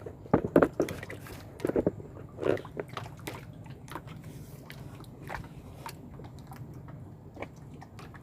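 Irregular short clicks and knocks, a few louder ones in the first three seconds, over a low steady hum.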